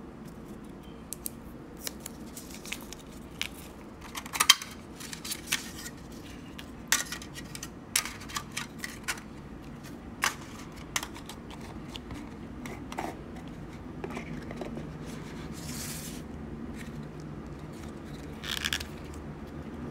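Unboxing handling: irregular sharp clicks and taps from a plastic earbud charging case and its cardboard box, the loudest about four and a half seconds in, with plastic protective film crinkling as it is peeled off and brief rustles near the end.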